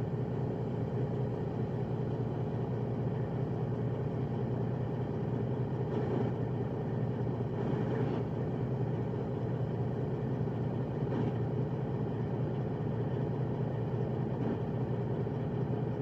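Freightliner Coronado semi truck's straight-piped diesel engine idling steadily.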